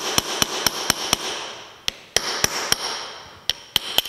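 Hammer blows on a steel punch, driving the worm gear out of a Wells-Index milling machine's head-tilt mechanism: three quick runs of sharp metallic strikes, about four a second, with short pauses between. The metal rings after each blow.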